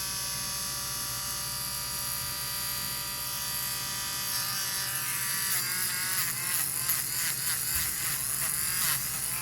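Small electric nail grinder running steadily on a parrot's toenail, its motor giving a steady whine. About halfway through, the pitch starts to waver up and down.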